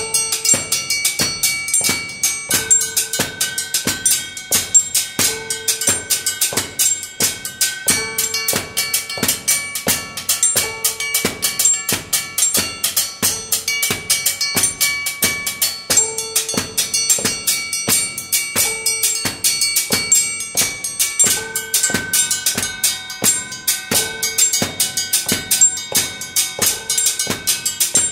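Percussive music: a fast, steady beat of sharp drum-like strikes, with held tones above it that change pitch every few seconds.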